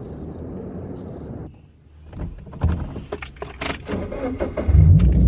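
Car sounds: a low rumble, then a run of clicks and knocks as someone handles the car, and a loud low rumble building near the end as the engine starts.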